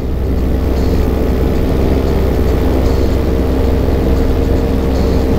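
Paramotor engine and propeller running at a steady pitch, with a constant rushing noise underneath.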